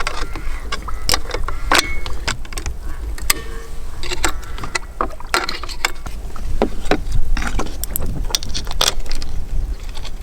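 Irregular metal clicks and clinks of tools and bolts as hydrofoil wings are screwed onto an outboard motor's leg, over a steady low rumble.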